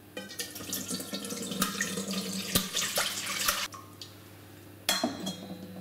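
Sugar syrup pouring and draining out of a lifted stainless steel colander insert full of orange segments into the pot beneath, stopping a little before four seconds in. About a second later comes a short metallic clank with ringing.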